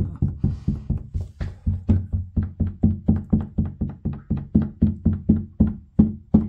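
Background music: a low note pattern repeating about five times a second, each note starting sharply and dying away quickly.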